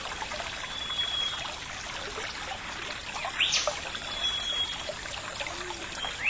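Steady rushing background hiss with a bird calling: a quick rising whistle about three and a half seconds in, and a thin held whistle twice.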